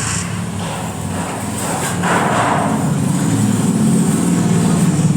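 An engine running steadily with a low droning hum that grows slightly louder, and a short rushing noise about two seconds in.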